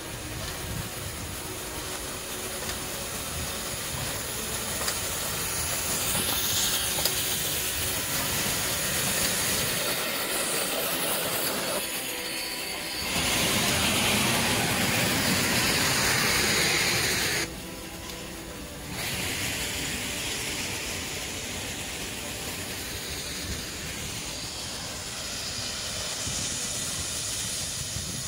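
Steam locomotive passing at close range, hissing steam around its wheels over the rumble of the train rolling by. About halfway through, a much louder blast of steam hiss lasts some four seconds and cuts off sharply.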